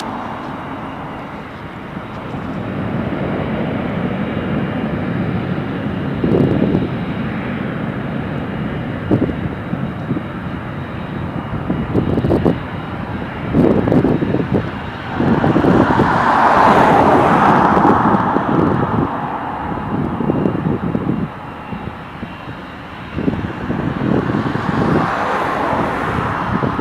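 A small jet airliner's engines running as it passes, the sound swelling to its loudest about two-thirds of the way through and then easing. Gusts of wind buffet the microphone throughout.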